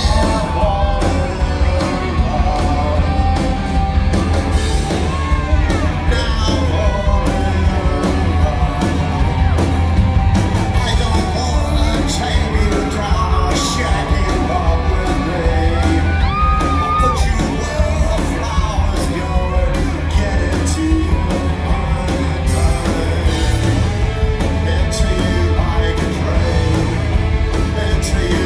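Live rock band playing loudly in a large hall, with electric guitars, drums and a lead singer's vocals.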